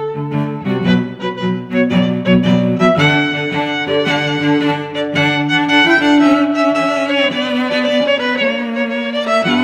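Background music led by bowed strings, with violin and lower string parts.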